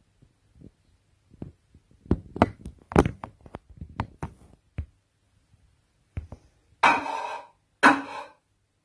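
Crockery and cookware being handled: a string of sharp knocks, taps and clinks, thickest in the middle, then two short scraping sounds near the end.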